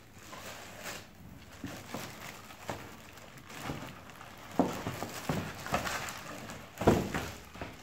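Plastic wrapping rustling and crinkling against cardboard as a wrapped foot massager is handled and lifted out of its box, with two dull thumps, the louder one near the end.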